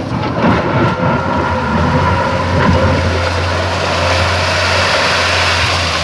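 Komatsu PC210 hydraulic excavator's diesel engine running steadily at working speed, with a steady whine over the engine.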